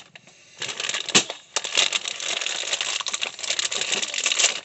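Plastic packaging crinkling and rustling as a small gear pouch is unwrapped and handled, with one sharp knock about a second in.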